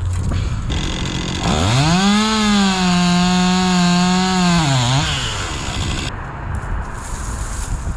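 Chainsaw engine revving up from idle about a second and a half in, held at a steady high pitch at full throttle for about three seconds, then dropping back down.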